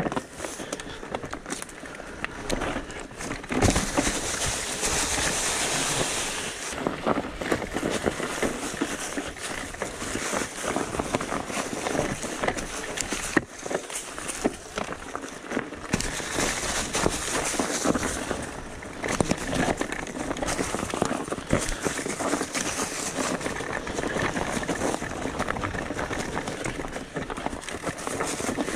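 Electric mountain bike riding over a rough trail: tyres rolling over uneven ground with many small knocks and rattles, and wind noise on the microphone that swells twice.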